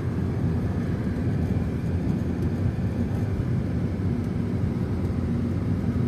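Steady engine and tyre noise inside a car's cabin as it drives along an asphalt road.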